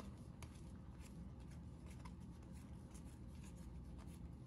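Faint rustle and light clicks of Topps baseball trading cards being handled and flipped through, over a low room hum.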